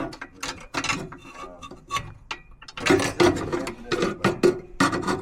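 Rapid mechanical clicking and rattling, a dense run of quick clicks that grows busier about three seconds in.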